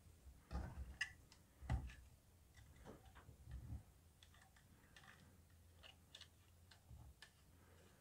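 Faint clicks and light knocks of a metal laptop hard-drive bracket being handled and screwed onto a 2.5-inch SSD with a small screwdriver. The loudest knocks come about half a second and just under two seconds in, with scattered light ticks after.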